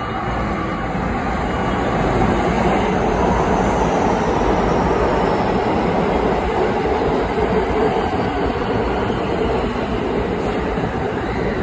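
JR West Special Rapid electric train pulling into the platform, its running noise building over the first couple of seconds and then holding steady as the cars roll alongside. A faint falling whine is heard as the train slows to stop.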